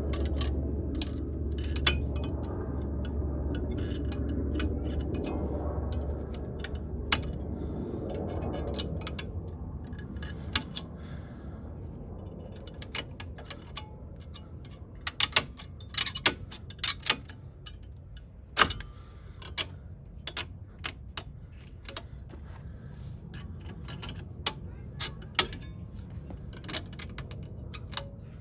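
Scattered metallic clicks and taps of hand work on a car's front brake caliper as a brake part is fitted into place; the sharpest clicks come in the second half. A low steady rumble underneath fades out over the first ten seconds or so.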